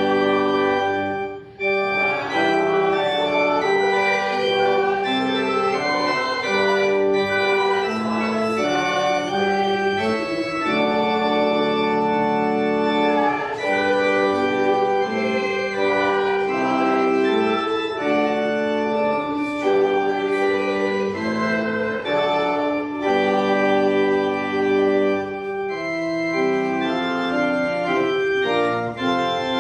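Organ playing slow, held chords, with notes changing about every second and a brief break about a second and a half in.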